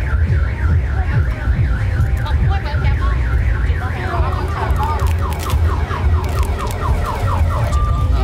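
Vehicle anti-theft alarm cycling through its tones: a fast warbling wail, then quick falling chirps, about three a second, from about halfway, then a steady tone near the end. A steady low rumble runs underneath.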